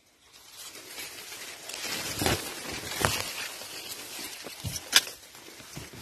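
Leaves and grass rustling as someone pushes through a corn field, with a few sharp snaps; the loudest comes about five seconds in.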